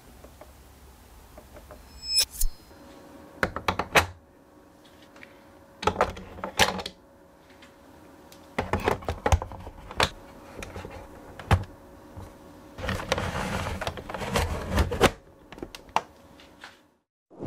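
Handling noises from a plastic art-toy figure and its parts being set down and moved: scattered clicks and taps in small groups, with a scraping rustle lasting about two seconds near the end.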